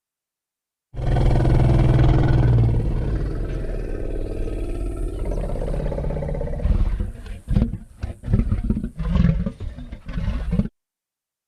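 Made-up dinosaur-like monster vocal sound effect for a ceratosaurus-like cryptid: one long, deep roar, then a string of short grunts that stops suddenly.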